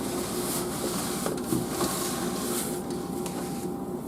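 Hands handling computer parts: rustling and a few light clicks over a steady low hum.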